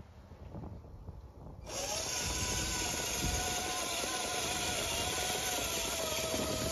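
Electric motors and gearboxes of a Tamiya Clodbuster RC monster truck whining steadily as it drives forward, pushing snow with its plow blade. The whine starts about a second and a half in, after a quiet start.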